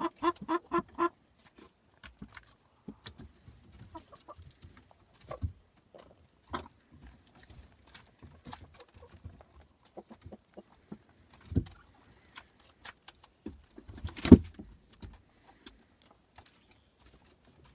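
A chicken clucking in a fast run of about four or five clucks a second, which stops about a second in. After that come only scattered soft clicks and knocks, with a sharp thump, the loudest sound, about fourteen seconds in.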